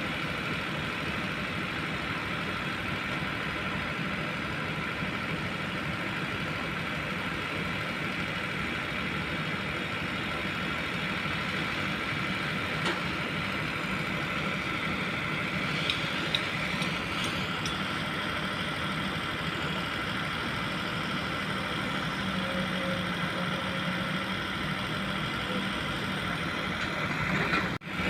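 Kobelco long-boom excavator's diesel engine running steadily, with a few short knocks about halfway through.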